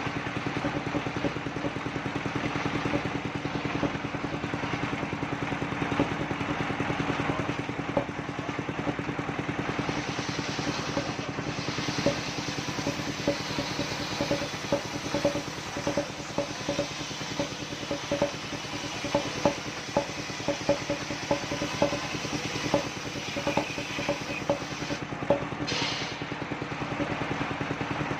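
Engine of a homemade portable circular sawmill running steadily, with irregular knocks and clatter throughout, more frequent in the second half.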